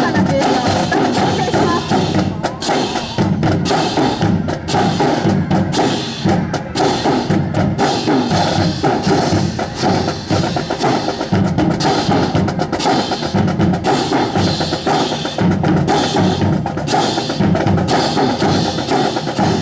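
Music with drums and percussion, full of short, sharp strokes throughout.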